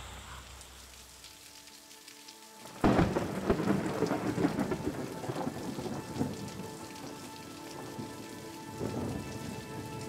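A sudden crack of thunder about three seconds in, followed by a steady wash of heavy rain.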